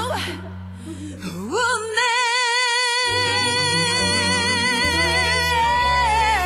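Pop ballad with a female singer. After a brief lull she comes in about one and a half seconds in and holds one long high note with vibrato over the backing track.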